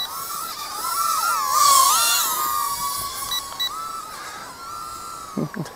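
Tomzon A34 mini quadcopter's brushed motors and propellers whining in flight, several close pitches wavering up and down together as the throttle changes, loudest about two seconds in.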